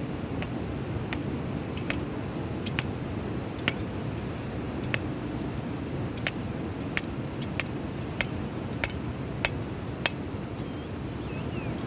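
A series of sharp, short clicks, roughly one every half second to second, over a steady low background rumble.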